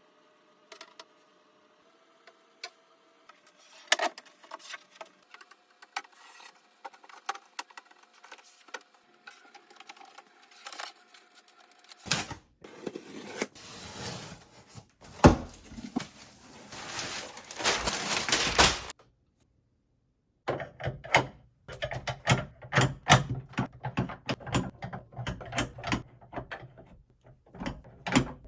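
Irregular clicks, taps and knocks of hardware and parts being handled and fitted in a small room, with a denser stretch of rustling and scraping about halfway through.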